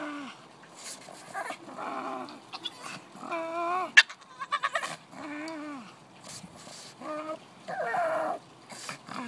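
Black pug making a series of drawn-out, pitched moaning cries, one every second or two. A sharp click about four seconds in is the loudest sound, followed by a quick run of ticks.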